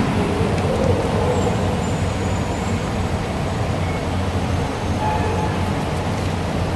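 Steady low rumble and hiss of train-station background noise, with no distinct events.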